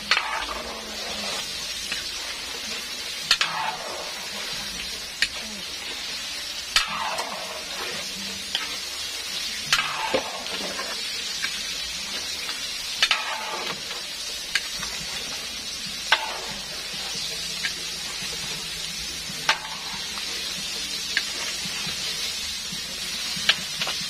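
Chicken pieces deep-frying in hot oil in a large metal wok, sizzling steadily. A metal ladle stirs the pieces, clinking and scraping against the pan every two to three seconds.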